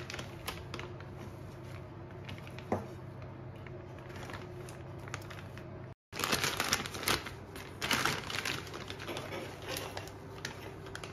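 Green plastic piping bag crinkling and a spatula scraping almond meringue from a glass bowl into it, in irregular rustles and scrapes during the second half. Before that there is a steady low hum with a few light clicks, and the sound cuts out for a moment about halfway.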